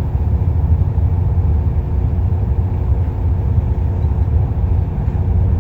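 Heavy diesel engine of a Kobelco excavator running steadily, with a deep drone and a constant hum above it, and no revving.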